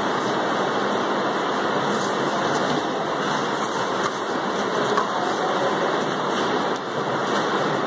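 Steady rushing noise with no distinct thuds or voices standing out.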